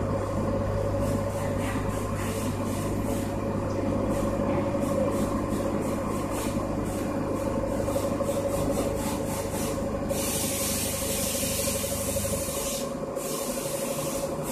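CNC milling machine cutting the part under flood coolant: the spindle runs with a steady whine while the cutter rasps across the workpiece. A louder coolant hiss swells for a few seconds near the end.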